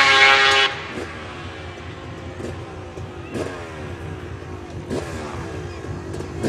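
Arctic Cat 1100cc-engined drag quad running at high revs, cutting off suddenly under a second in. After that the engine is much quieter, with a few short revs whose pitch falls away.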